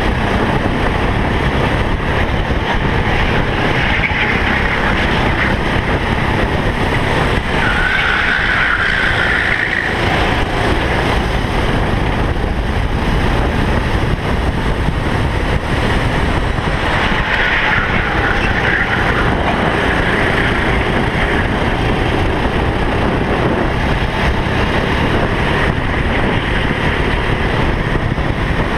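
Onboard sound of a Sodi racing kart at speed: its engine running hard close to the camera, mixed with steady wind rush, with other karts running close by.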